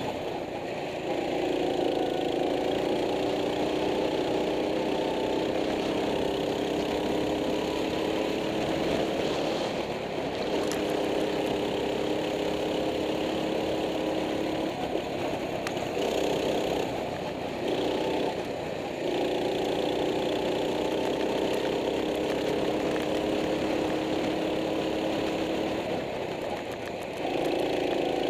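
Go-kart engine heard from on board, its pitch climbing slowly under throttle along the straights and falling away several times as the driver lifts off for the corners.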